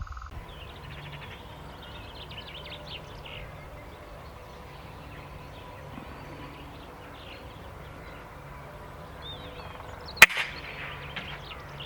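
Birds chirping over a quiet outdoor background, then about ten seconds in a single sharp crack of an Air Arms S510 sub-12 ft-lb PCP air rifle firing a pellet.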